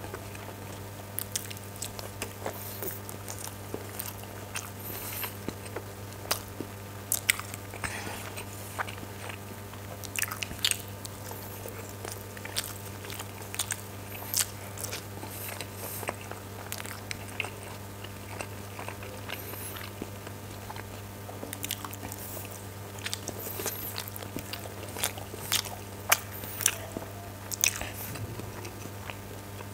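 Close-up chewing and biting of steamed chicken momos and chow mein noodles, with frequent sharp wet mouth clicks and smacks. A steady low hum runs underneath.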